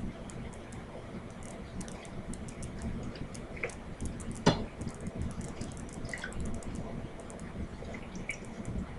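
Wet, sticky sounds and small clicks of gloved hands pulling fat and skin off a raw chicken, with one sharper click about halfway through.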